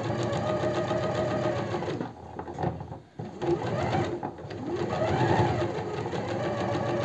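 Sewing machine stitching bias binding around a neckline, running in spurts: it stops briefly about two and three seconds in, and its pitch rises and falls as the speed changes.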